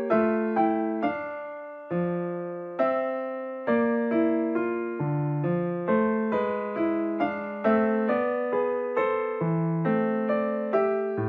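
Background piano music: a gentle melody of struck notes, each starting sharply and fading away.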